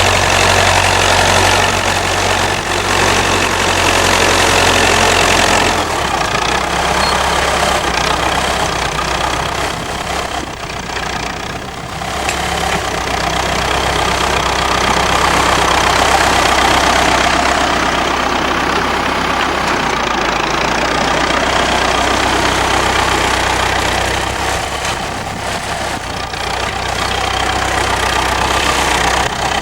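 Massey Ferguson 65 tractor engine running steadily while pulling a plough. Its note drops a step about six seconds in and then holds steady.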